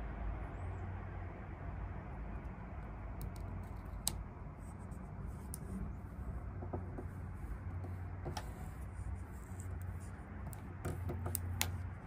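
Scattered faint clicks and rattles as the truck's side storage compartment door is handled, over a steady low rumble.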